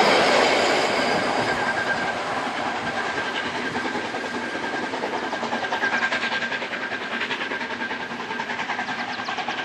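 Metre-gauge Harz steam train drawing away after its last coach has passed, wheels clacking over the rails and fading. A quick, even beat runs through the second half as the train recedes.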